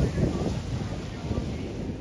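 Wind buffeting the microphone in a gusty low rumble that eases a little after the first half second, over small waves washing onto a muddy beach.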